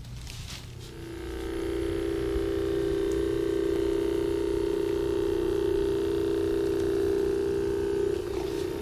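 Handheld electric massager buzzing steadily against the body, starting about a second in and changing slightly in tone near the end.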